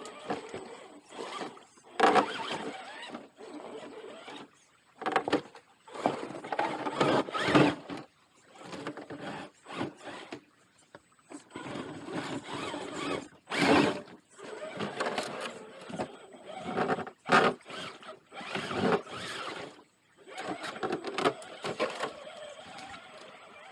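Electric motor and geared drivetrain of an RC rock crawler whining in stop-start bursts as it is throttled over rock, with tyres scrabbling and short pauses between pushes.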